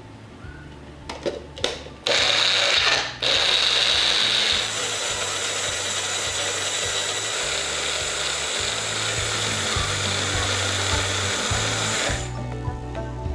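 Magic Bullet personal blender blending herbs and olive oil into a green sauce. A couple of clicks come as the cup is locked onto the base, then the motor starts about two seconds in. It breaks off for a moment, runs on a little quieter, and stops near the end.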